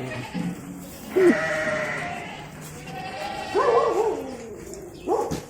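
Goats bleating, several calls one after another, some short and some drawn out.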